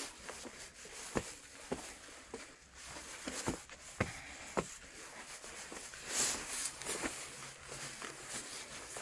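Footsteps on steps: irregular single taps, about one every half second to a second, with a short rush of noise about six seconds in.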